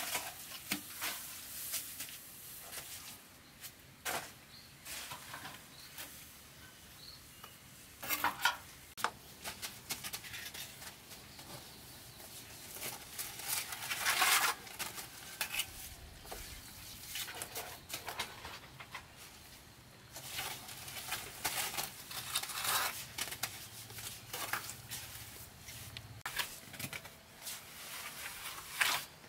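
Metal trowel scooping, scraping and spreading wet cement mortar, with irregular scrapes and clinks; the loudest scrapes come about 8 and 14 seconds in.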